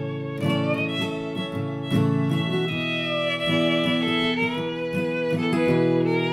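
Improvised fiddle music with a plucked-string accompaniment.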